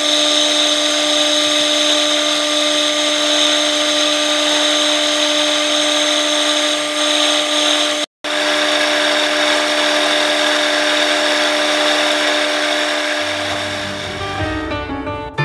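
Sherline milling machine's spindle running steadily with a constant whine while the cutter takes a light facing cut across a 4140 steel block. The sound cuts out briefly about eight seconds in, and music with piano comes in near the end.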